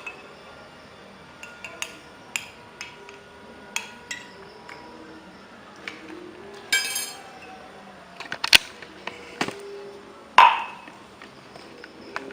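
Cutlery and glassware clinking while the remedy is mixed: scattered light clinks and taps, with a few louder knocks and one ringing clink about ten seconds in.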